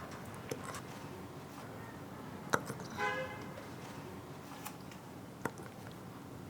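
English bulldog puppy with the hiccups: a few faint, sharp hiccup clicks a second or two apart, and a brief high whine about three seconds in.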